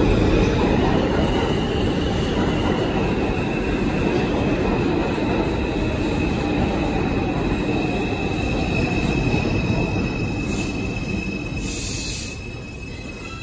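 New York City subway train of R142 cars rumbling into a station and slowing to a stop, with a steady high wheel squeal over the rumble. A couple of short hisses come near the end, and the noise drops off as the train comes to a halt.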